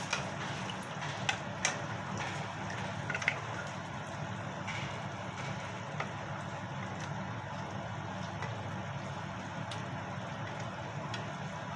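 Wooden spatula and chopsticks stirring a simmering coconut-milk curry in a frying pan, knocking against the pan a few times in the first few seconds and once more about six seconds in, over a steady low rumble.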